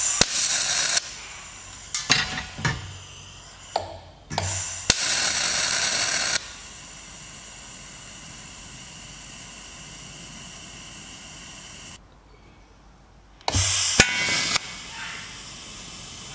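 Arc of a Unimig Razor 200 AC/DC TIG welder laying practice beads on thin sheet metal: a steady hissing buzz that turns much louder for a second or two at a time, three times. It cuts out briefly about twelve seconds in, then strikes up again.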